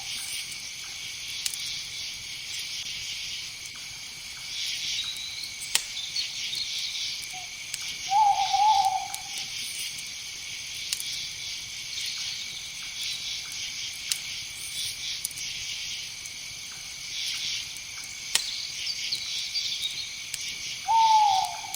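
Steady night-time insect chorus with an owl giving a single short hoot about eight seconds in and another near the end.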